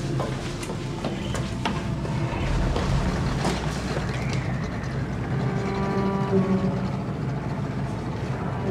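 Small outboard motor on a wooden rowing boat running steadily, a low hum with a faint whine above it that becomes clearer about halfway through. There are scattered knocks and clicks in the first few seconds.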